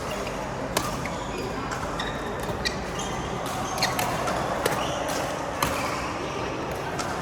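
Badminton rally: sharp clicks of rackets striking the shuttlecock, about one a second, over a steady background din.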